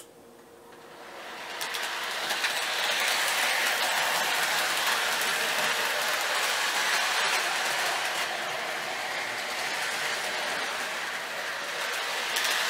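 MTH Rail King die-cast 4-8-4 Northern O-gauge model steam locomotive running on its track: a steady rushing, rolling noise that builds over the first couple of seconds as it gets under way, then grows louder near the end as the engine comes close.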